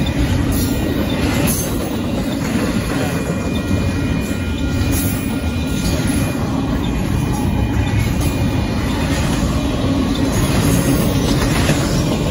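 Union Pacific intermodal freight train's container cars rolling past loudly, a steady rumble of steel wheels on the rails with a few scattered clacks.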